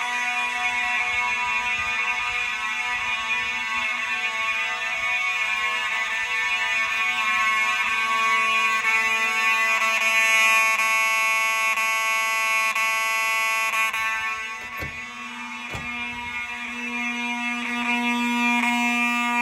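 FCI mechanical fire alarm horns (rebranded Faraday units) sounding continuously, a steady harsh buzzing horn tone, set off by a smoke detector test. The tone dips briefly about 15 seconds in, with a couple of sharp knocks.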